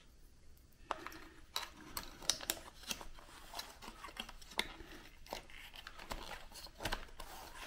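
Light, irregular clicks and scrapes of plastic parts being handled and pressed together: an alarm clock's display circuit board being seated in the slot and groove of its plastic housing. The clicks start about a second in.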